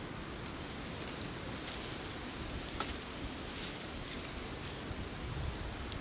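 Wind blowing outdoors in woodland, a steady rushing with low rumble on the microphone, with light rustling and a few faint clicks.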